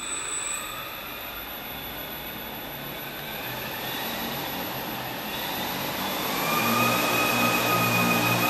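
Multirotor drone's electric motors and propellers starting and spinning up. The whine grows louder and rises in pitch as the drone throttles up toward takeoff.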